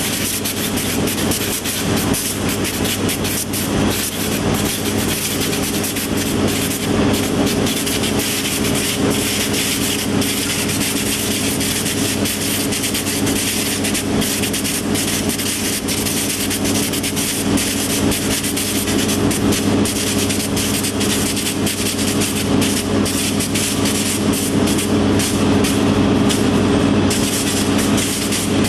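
Green pepper vision-sorting line running: conveyor belts and their geared electric motors give a steady hum under a continuous fine rattle and clatter.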